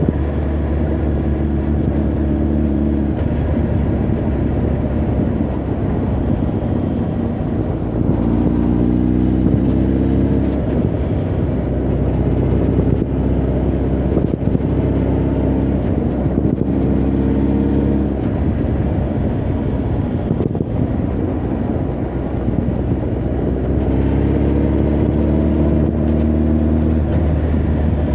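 Honda CB1300 Super Bol d'Or's inline-four engine and exhaust on the move, its pitch rising in several pulls as it accelerates, with a steady low rumble of wind and road noise underneath.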